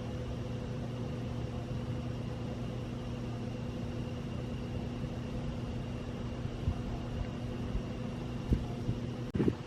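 Steady low mechanical hum, like a distant engine running, with a few faint thuds late on.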